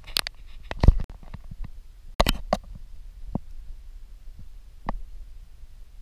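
Scattered crunches and knocks of footsteps through dry leaf litter and fallen sticks on a woodland floor. The loudest is a heavy thump about a second in, with another sharp crack a little after two seconds.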